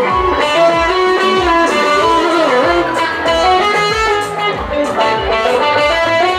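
Electric guitar, a white hollow-body, playing an instrumental melody of held notes with some bends, over a live band's drums and bass.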